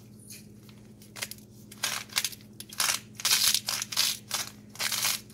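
Hand-twisted salt grinder grinding salt. A run of short grinding bursts starts about a second in and comes several times a second.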